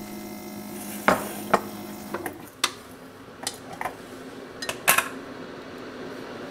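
A metal spoon clinking and tapping against a ceramic mug and a small container, about eight sharp clinks, the loudest near the end. A steady low hum underneath stops about two seconds in.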